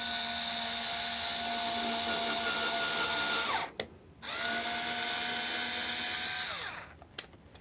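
Small cordless drill drilling pilot holes for wood screws: it runs at a steady whine for about three and a half seconds and winds down, then runs again for about two seconds and winds down, with a sharp click after each run.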